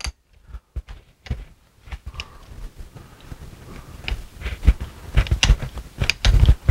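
Irregular plastic-and-metal clicks and knocks from a hand-held nylon fuel line tool as its T-handle screw is turned to press the fuel line onto a quick-connect fitting's nipple. Sparse at first, busier from about four seconds in, with a few heavier knocks near the end.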